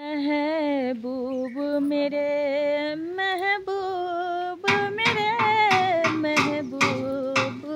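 Recorded Hindi film song: a long, wavering held vocal line, then drum beats join about halfway through, about three a second.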